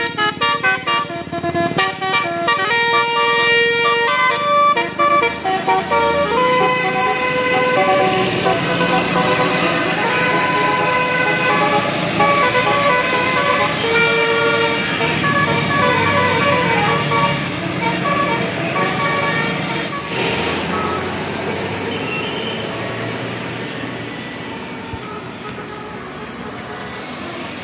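Many vehicle horns honking over one another above the noise of road traffic. The honking is densest in the first half and dies away slowly toward the end.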